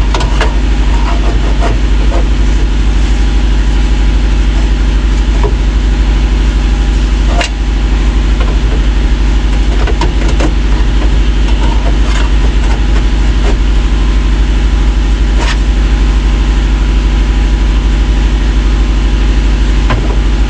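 A steady, loud mechanical drone like a running motor, unbroken throughout, with scattered light clicks and knocks of hand work, the sharpest about seven and a half seconds in.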